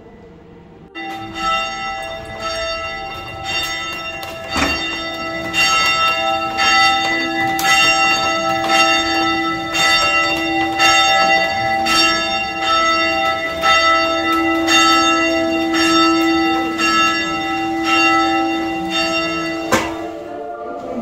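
Church bells ringing, struck about once a second, their long tones overlapping. The ringing starts abruptly about a second in and cuts off near the end.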